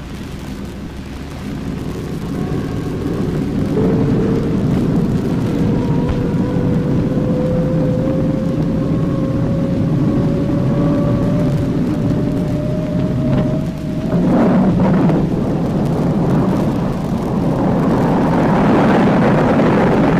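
Jet trainer's turbojet engine running up: a steady low rumble under a whine that climbs slowly in pitch, breaks off about two-thirds of the way through, and gives way to a growing rushing roar near the end.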